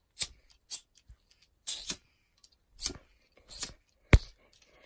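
Handling noises: a string of short rustling scrapes about once a second, and one sharp click about four seconds in.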